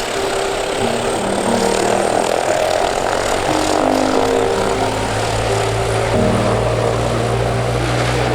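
YS-11EB twin-turboprop aircraft on a low approach: steady engine and propeller noise that grows heavier and deeper about five seconds in, mixed with background music.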